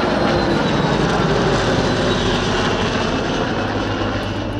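L-39 jet trainer flying past: a steady jet rush with a faint high whine that slides slowly down in pitch.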